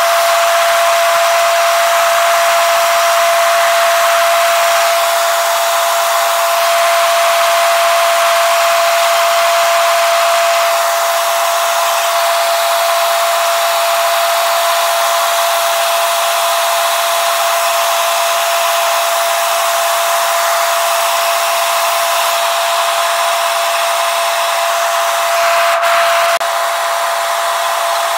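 Helicopter in flight heard from inside the cabin: a steady, loud rushing noise with one constant high-pitched whine.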